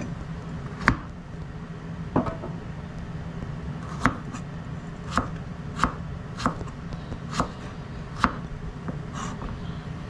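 Kitchen knife slicing a carrot on a cutting board: about nine separate knocks of the blade reaching the board, roughly a second apart, over a steady low hum.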